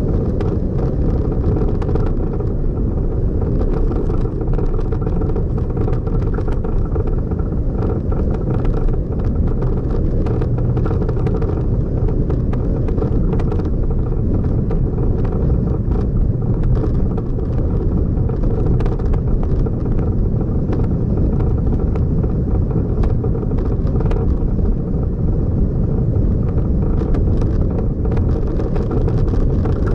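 Motor vehicle driving along a road: a steady low engine-and-road rumble with many small knocks and rattles scattered through it.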